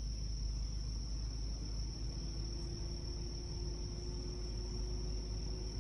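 Insects trilling in a steady, unbroken high-pitched chorus over a low, even rumble.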